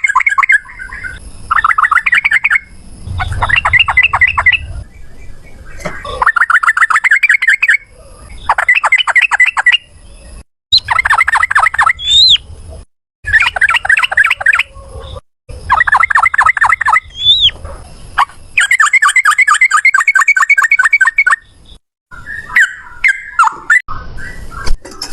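Yellow-vented bulbul (trucukan) song: a string of rapid chattering trills, the long 'ropel' runs, each a second or two long with short pauses between, and two brief rising whistles partway through. Near the end the song breaks into shorter, irregular notes.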